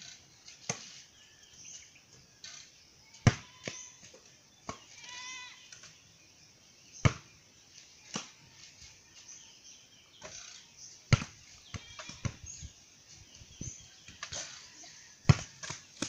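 A basketball thudding as it bounces on hard dirt and strikes a wooden backboard: a series of sharp knocks a few seconds apart. A short wavering call sounds about five seconds in.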